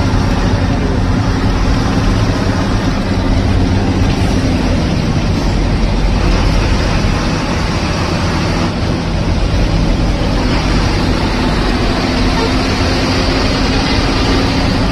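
Bus engine running steadily under way with heavy road and wind noise, heard from inside the bus cabin at the windscreen.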